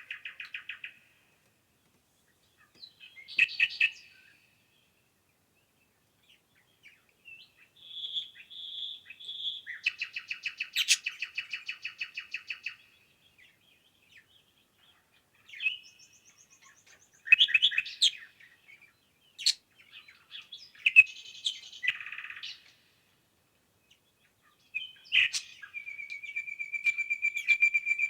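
Songbirds singing: separate phrases of high chirps and trills with short silences between them, one of them three repeated notes running into a rapid trill. Near the end comes a long, even, fast trill.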